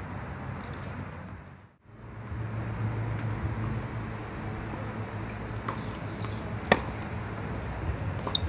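Tennis ball struck by a racket: one sharp pop about two-thirds of the way in, with fainter ball hits or bounces shortly before and near the end, over a steady background hiss. The sound briefly drops out near the start and comes back.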